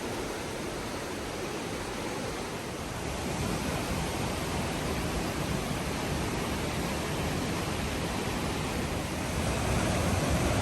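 Rushing water of Johnston Creek and its waterfalls, a steady full hiss that grows louder about three seconds in and again near the end.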